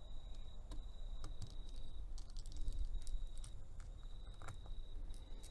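Faint, irregular small clicks of a small screwdriver working the tiny screws on a watch's back cover. A steady thin high-pitched tone hangs behind them, breaking off briefly now and then.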